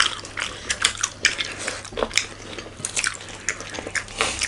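A person chewing food with wet mouth clicks and smacks, irregular, several a second.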